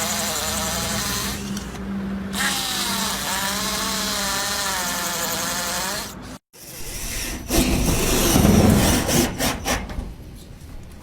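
Cordless drill running, its motor whine rising and falling in pitch as the trigger is worked. After a short break, a louder, rougher stretch of drilling follows with a run of sharp clicks, then it quiets.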